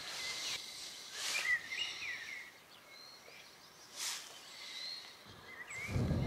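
Small birds chirping and twittering in short high calls, with a few brief soft rustles. A low wind rumble on the microphone comes in near the end.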